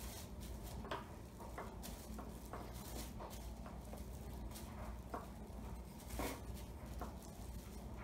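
Light scattered taps, knocks and rustles as a small wooden rolling pin rolls topping dough on plastic wrap over a cutting board, with a faint steady low hum underneath.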